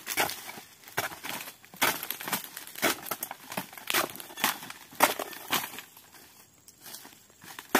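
Repeated chopping strokes of a long-poled blade cutting into oil palm frond bases, each strike sharp and followed by the crackle and tearing of dry frond material. The strikes come about once or twice a second and ease off briefly near the end.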